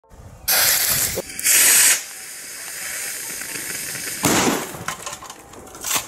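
A lit firework fuse burning and sputtering with a loud hiss. It comes in two loud bursts of about half a second within the first two seconds, then a quieter steady hiss, then another loud burst a little after four seconds.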